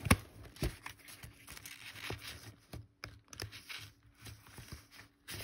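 Postcards being sorted through by hand: a sharp click about as the handling starts, then irregular soft paper rustles and light taps of card against card.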